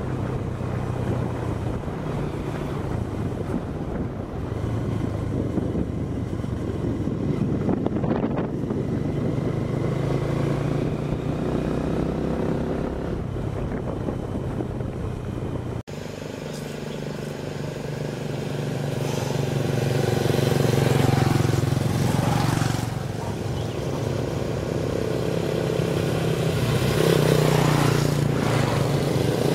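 Motorbike engine running as the bike is ridden. There is an abrupt cut about halfway through, and after it the engine is louder and its level rises and falls.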